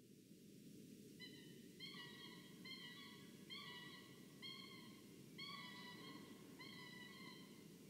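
Peregrine falcon calling: a clear, slightly rising note about half a second long, repeated roughly once a second from a second or so in. A steady low background noise runs underneath.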